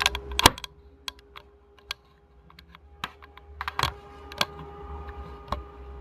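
Hands opening and handling a Mac mini's retail packaging: irregular sharp clicks and taps, loudest just after the start and again about four seconds in, over a faint steady hum.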